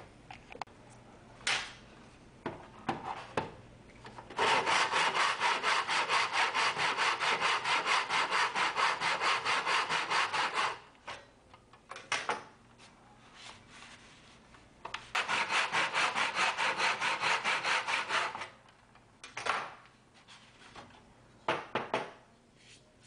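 Hand saw cutting a small MDF block held in a plastic miter box, in two runs of quick, even back-and-forth strokes: one lasting about six seconds and a shorter one of about three and a half. Scattered knocks and handling clatter come before, between and after the two runs.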